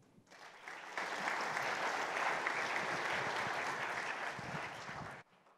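Audience applauding, swelling to full strength about a second in, then cutting off abruptly near the end.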